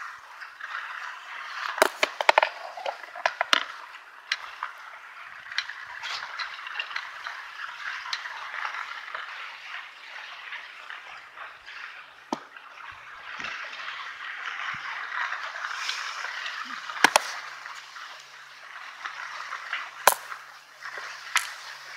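Skis hissing and scraping over packed snow on a downhill run, a steady rushing noise that rises and falls with the turns. Sharp clicks and knocks come through it, a cluster about two seconds in and two loud ones near the end.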